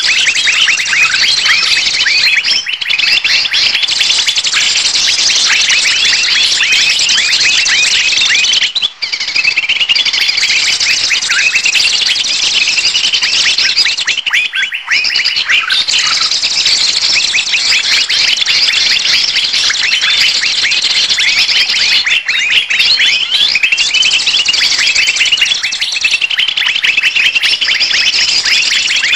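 Bird-luring recording (pikat MP3) of many small birds chattering and calling at once, a dense, noisy din of quick high-pitched chirps and whistles, with short breaks about 9 and 15 seconds in.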